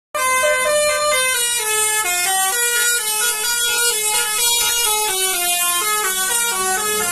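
Pandawa 87 bus's telolet horn, a multi-tone bus horn, playing a quick stepped melody with about three notes a second. A steady low hum runs beneath it.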